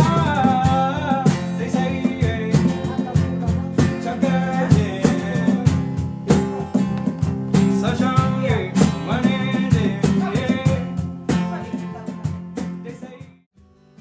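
Background song with strummed acoustic guitar and a singing voice. It cuts off abruptly near the end.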